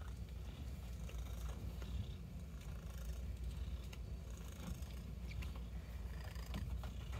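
Domestic cat purring steadily while being stroked, with a few faint ticks from handling.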